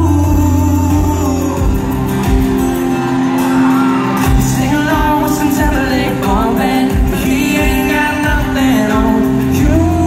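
Live pop-country band heard from the audience in a large hall: a male lead vocal sings over acoustic and electric guitars, bass and drums.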